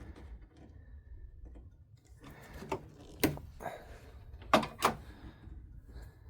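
Wire strippers snapping shut on a thin automotive wire as its insulation is stripped back: four sharp clicks in the middle, with quieter handling noise around them.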